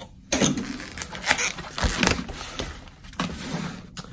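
Packaging being handled by hand: several short scrapes and taps with softer rustling in between.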